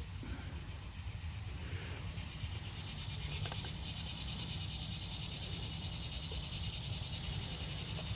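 Quiet outdoor background: a steady high-pitched hiss over a low rumble, with a few faint ticks.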